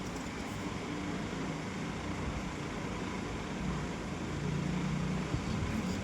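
Steady background hum and hiss, with a low rumble that swells briefly near the end.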